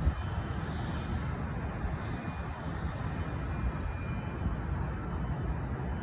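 Jet engines of an approaching Airbus A320 airliner: a steady low rumble with a faint high whine.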